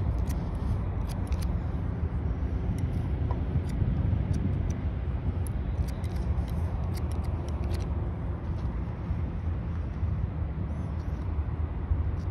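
Steel barber's shears snipping hair over a plastic comb, a scattered series of sharp clicks coming in runs near the start, in the middle and near the end. Under them runs a steady low rumble, louder than the snips.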